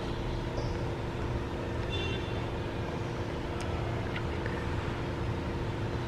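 Steady low background rumble, like distant traffic, with a faint steady hum. Short high bird calls come through about half a second and two seconds in.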